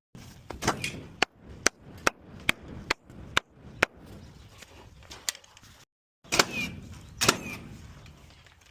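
Pneumatic nail gun firing a rapid series of sharp shots, about a dozen in all, driving nails into roof trusses. The shots come two or three a second at first, then more sparsely, and the sound cuts out briefly twice.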